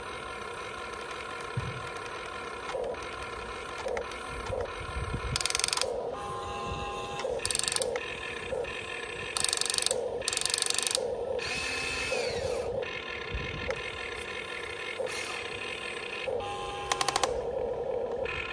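Huina 1592 RC excavator's small electric gear motors whirring and grinding in repeated short bursts as the boom, bucket and turntable move while digging sand, over a steady hum.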